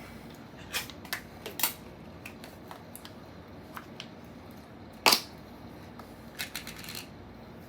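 Irregular light clicks and taps, with one sharper knock about five seconds in.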